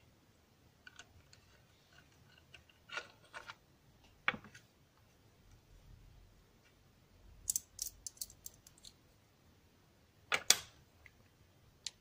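Scattered small metallic clicks and ticks from a Yale Superior dimple-lock core and a small tool as its tiny springs are worked out. There is a quick run of clicks about three-quarters of the way through and a sharper pair near the end.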